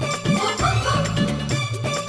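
Upbeat Hindi film song music with a steady beat.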